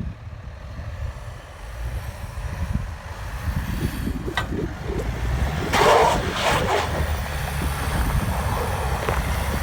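Off-road vehicle engine running under load on a sandy hill climb, a low rumble growing louder, with a louder burst of noise about six seconds in.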